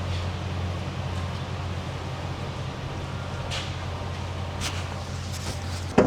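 Steady low mechanical hum with a few faint ticks, cut off by a sharp knock near the end.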